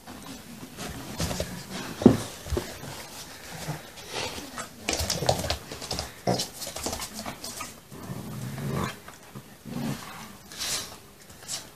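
Two dogs play-growling as they tug at a plush toy between them, in irregular bursts, with a sharp knock about two seconds in.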